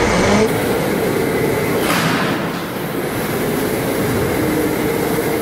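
Indoor electric go-karts running on the track: a steady electric-motor whine over tyre and hall noise.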